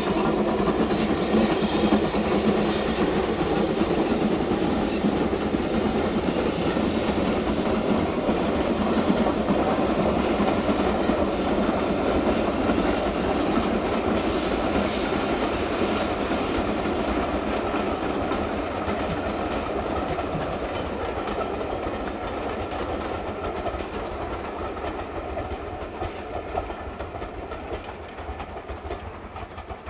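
Two steam locomotives, an S&D 7F 2-8-0 and a Black 5 4-6-0, double-heading a passenger train and working hard, with a dense run of exhaust beats and wheel noise on the rails. The sound fades steadily in the second half as the train draws away.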